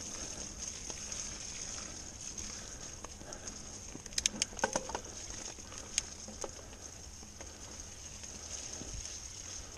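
Mountain bike rolling along a leaf-covered dirt forest trail: steady tyre noise over soil and leaves, with a quick cluster of sharp clicks and rattles from the bike about four to five seconds in and another single click about a second later.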